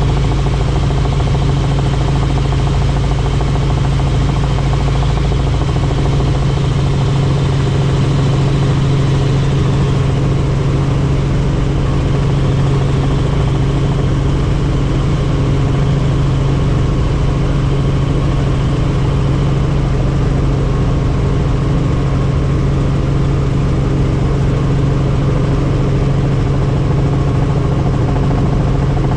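Helicopter engine and rotor running steadily in flight, loud and constant, with a strong low hum.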